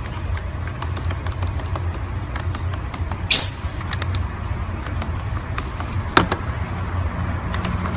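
A parrot gives one short, loud, shrill squawk about three seconds in, over a steady low hum with scattered small clicks.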